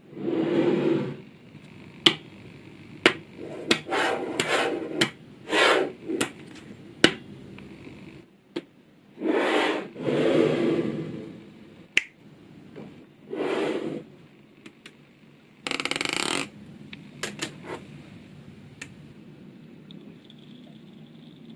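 Small magnetic balls clicking as they snap together, with short scraping and rattling runs as clusters of balls slide and roll against each other, at irregular intervals.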